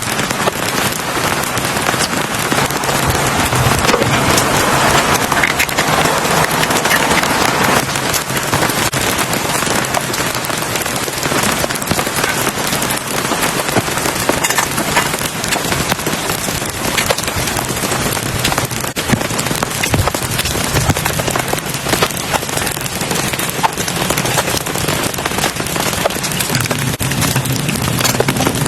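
Heavy rain falling steadily, a dense patter of many small drop hits.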